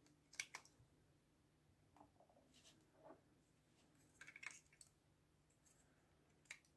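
Faint plastic clicks and taps as an AA battery is pulled out of a Varta LCD digital battery tester and another is pushed in under its yellow spring-loaded slider arm. A handful of sharp clicks, the loudest about half a second in, a cluster a little past the middle, and one more near the end.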